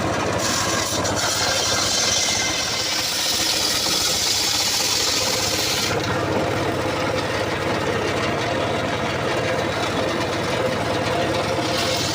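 Engine-driven saw running steadily as it cuts through coconut palm wood. The cutting sound turns brighter and harsher for a few seconds in the first half and again near the end.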